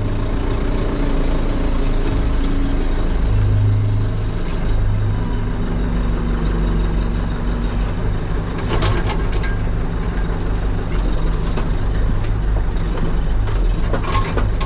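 Heavy diesel engine of a construction machine running steadily, with a few short knocks about halfway through and again near the end.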